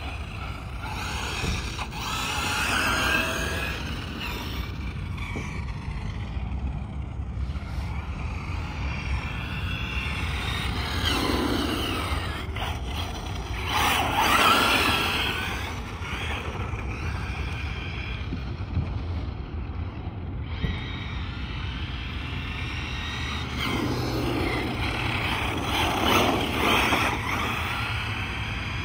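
Arrma Mojave 6S radio-controlled truck's brushless electric motor whining up and down in pitch as it accelerates and slows again and again on asphalt. The loudest full-throttle runs come about halfway through and near the end.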